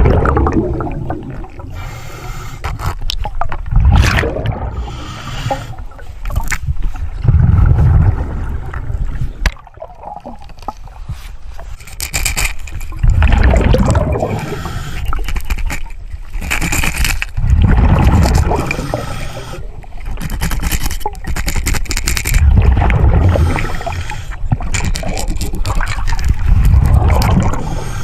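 Scuba diver breathing through a regulator underwater: a hissing inhale followed by a bubbling, gurgling exhale, repeating every four or five seconds.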